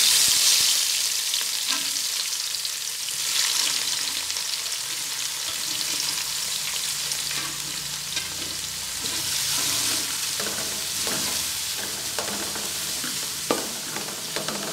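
Sliced red and green capsicum sizzling in hot oil in a wide metal uruli pan. The hiss swells as the pieces drop in. Towards the end a wooden spatula stirs them, knocking and scraping on the pan.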